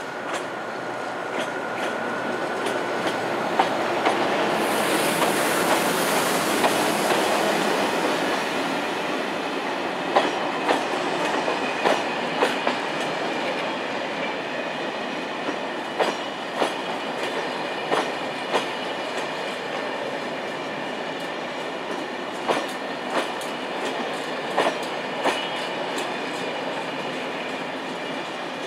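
SNCF BB 26000 electric locomotive passing with a thin whine at first, then a rising rush of noise as it goes by. A train of Corail coaches follows, rolling past with a steady rumble, the wheels clicking over the rail joints in regular pairs.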